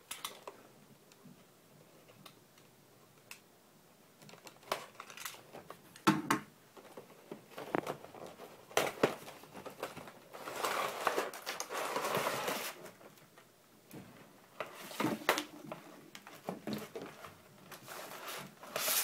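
A cardboard figure box being opened and its clear plastic blister tray slid out and handled: scattered taps and knocks, with a longer crinkling rustle of packaging about ten seconds in.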